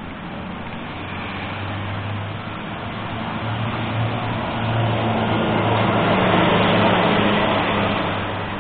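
Motor vehicle running with an engine hum and road noise. The sound swells to its loudest about six to seven seconds in, then eases off.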